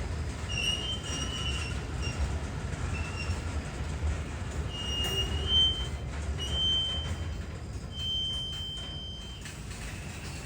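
A train rolling along the rails with a steady low rumble and a series of short, high-pitched wheel squeals that come and go, the longest near the end.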